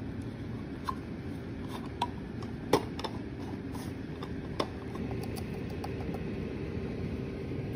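Steady background hiss with a handful of light clicks and taps, the sharpest about three seconds in.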